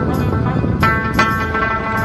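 Background music: held melodic tones with a couple of percussive hits about a second in.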